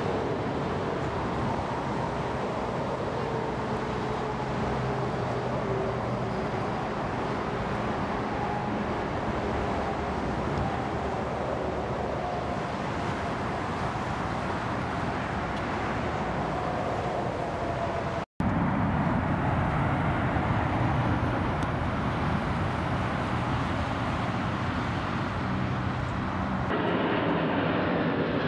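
The jet engines of an Airbus A330-300 airliner on final approach and touchdown: a steady engine noise with a whine sliding slowly down in pitch. A little past halfway a sudden cut switches to a louder, steadier engine rumble from a Boeing 757 on the runway. Near the end another cut brings in a Boeing 747 freighter's engines on approach.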